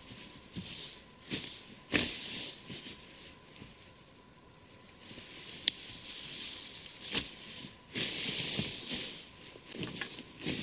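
Dry fallen leaves rustling and crunching as someone walks through them and gathers sticks from the leaf litter, with a few sharp twig snaps, the loudest about two seconds in and twice between five and seven seconds.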